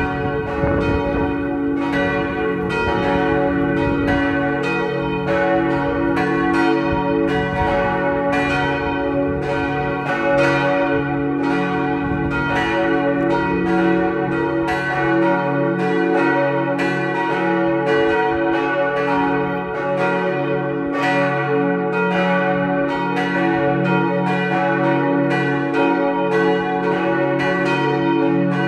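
Three church bells cast by Otto in 1964, tuned to cis, fis and ais', swinging and ringing together in a continuous peal, their strokes overlapping many times a second. A low rumble sits under the bells for the first few seconds.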